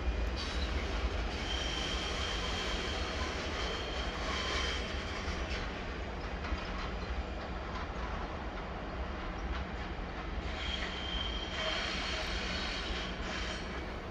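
SBB Re 420 electric locomotive running light at low speed over station pointwork, with a steady low rumble. Its wheels squeal high on the curved track twice, for a few seconds each: once shortly after the start and again past the middle.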